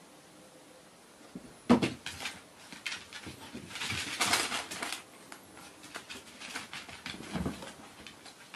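A sudden thump, then scuffling, pattering and fabric rustling as small pets, a cat and a chihuahua, scramble around a fabric cat tunnel on a tatami mat. A second thump comes near the end.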